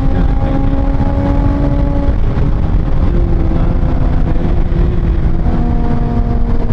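Kawasaki Ninja ZX-6R's 636cc inline-four running at a steady cruise on the move, under heavy wind rumble on the microphone. The engine note fades about two seconds in and comes back strongly about a second before the end.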